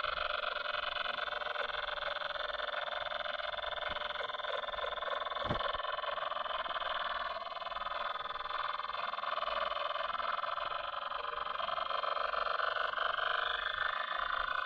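Dark MIDI music: a dense, distorted wall of many stacked synthesized MIDI notes sounding at once, steady and harsh, with a brief low click about five and a half seconds in.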